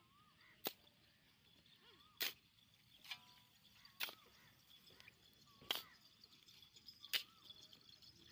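A steel shovel striking into hard-packed sandy earth, about six short sharp chops spaced a second or two apart.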